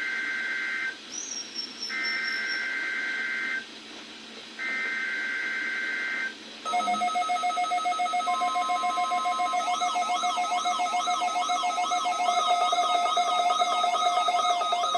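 NOAA Weather Radio broadcasting the EAS SAME header: three bursts, each about a second long, of a two-tone digital data warble. About seven seconds in, weather radio alert alarms start: a loud, fast-pulsing beep, joined a few seconds later by a siren-like tone sweeping up and down.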